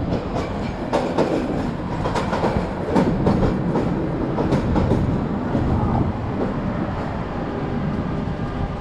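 Detroit People Mover train, an automated steel-wheeled linear-induction-motor car set, passing overhead on its elevated guideway. A quick run of clicks and knocks fills the first five seconds, then it settles into a steadier rumble.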